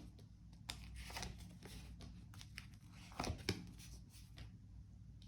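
Tarot cards being handled: soft rustles and light clicks of cards sliding and being set down, with a short cluster about three seconds in, over a low steady room hum.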